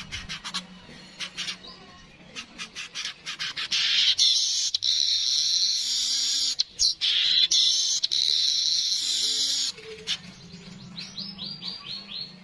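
Weaver bird (manyar) singing: a run of quick ticking chips, then a long buzzing wheeze lasting about six seconds, then a quick series of short falling notes near the end.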